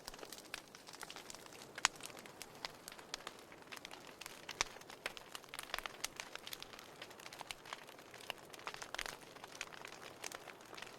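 Wood fire crackling in a fireplace: irregular small pops and snaps over a faint hiss, with a sharper pop about two seconds in.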